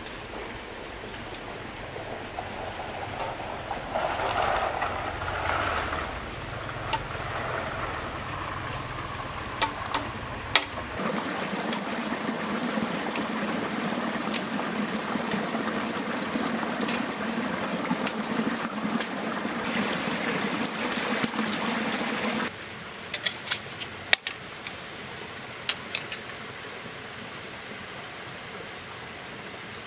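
Running stream water with scattered sharp clicks and knocks. The water sound changes abruptly about eleven seconds in and again a little after twenty-two seconds, where it becomes quieter.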